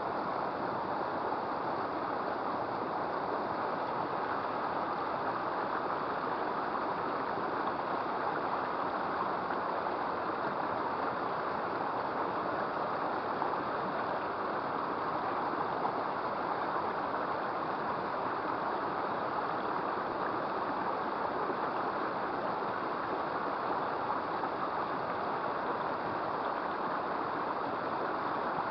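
Small river water flowing, a steady even rushing.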